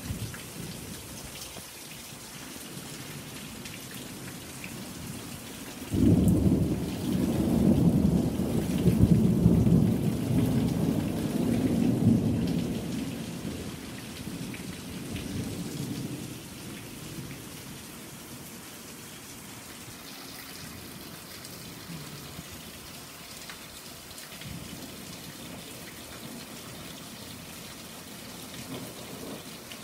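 Steady rainfall, with a thunder clap breaking in about six seconds in and rolling for several seconds before fading back to the rain.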